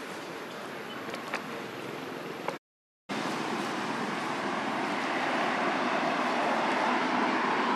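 Steady outdoor background noise with a couple of faint clicks, broken by a sudden half-second dropout about two and a half seconds in. After it a car passing on the road grows steadily louder toward the end.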